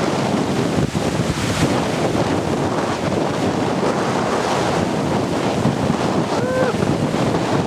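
Strong gale wind buffeting the microphone over waves breaking along the shore, a dense, steady rushing noise. About six and a half seconds in there is a brief pitched call that rises and falls.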